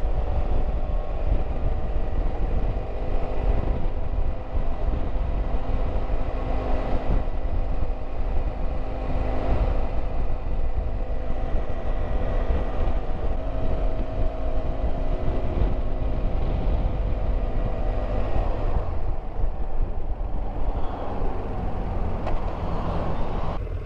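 Riding noise from a BMW F700GS motorcycle at a steady pace: heavy wind and road rumble, with the engine's drone running underneath.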